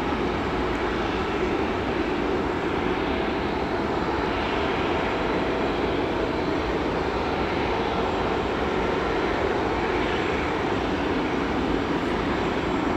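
Boeing 747-8F freighter's four GEnx-2B jet engines running at a steady, even level as the aircraft taxis.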